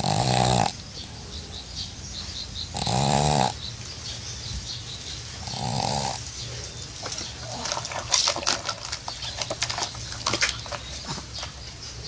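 Pug snoring: three drawn-out, buzzing snores about three seconds apart, then crackly snuffling breaths with scattered clicks.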